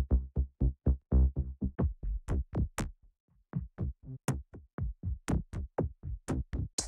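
Electronic percussion loops from a cinematic loops sample pack, previewed one after another. A fast pattern of deep, booming hits stops about three seconds in. After a short gap, a brighter, crisper percussion loop starts.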